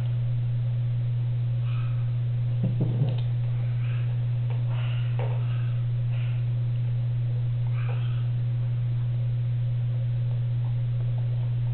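A steady low hum, with a few faint short sounds over it and a brief clatter of clicks about three seconds in.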